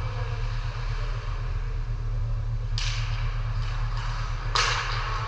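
Ice hockey play on the rink: two sharp, hissing cracks about two seconds apart, one past the middle and one near the end, over a steady low hum.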